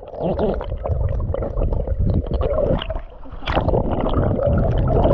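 Water sloshing and splashing close to the microphone, with low rumbling handling noise, as a jungle perch is released back into the creek. The sound cuts off abruptly at the end.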